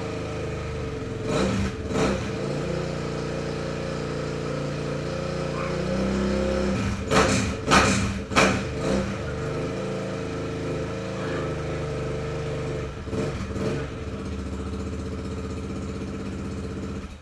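Kawasaki KLX700R dirt bike's single-cylinder four-stroke engine idling, with short throttle blips about a second and a half in, several in the middle, and one more near the end.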